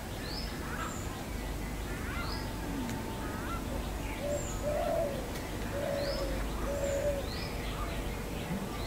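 Birds calling: a short high rising note repeated every second or two, and a run of four low notes in the middle.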